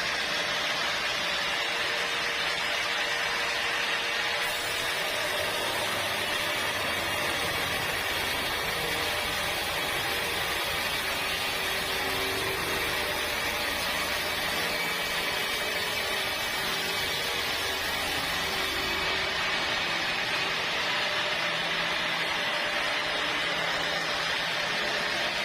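Sawmill saw machinery running steadily. From about four seconds in to about nineteen seconds in the sound gets harder and hissier, as when the blade is under load.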